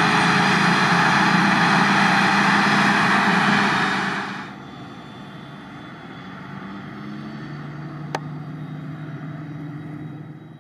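Claas Jaguar forage harvester on Terra Trac tracks running as it drives, a loud steady engine and machine noise. About four seconds in it drops suddenly to a quieter, more distant engine sound. There is one sharp click near the end.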